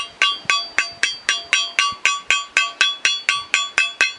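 Hammer tapping a new ball bearing into the fan housing's bearing seat of a walk-behind tractor, in quick light even blows of about four a second, each ringing like struck metal. The bearing is a tight fit and resists going in even under gentle taps.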